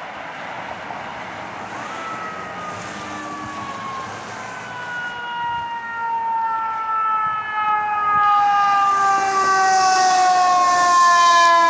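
Fire engine siren approaching: from about two seconds in, one long wail that falls slowly in pitch and grows louder over the last several seconds, over a haze of street traffic.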